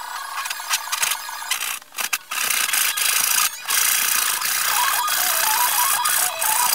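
Hand tools working on wooden 2x4s: a loud, ratcheting, rasping mechanical noise that breaks off briefly twice.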